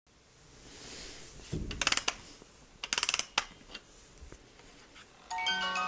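Clockwork mechanism of an early 20th-century Roullet & Decamps automaton being wound with its key: a low knock as it is handled, then two short runs of rapid ratchet clicks and a few single clicks. Near the end its music box starts playing a tune.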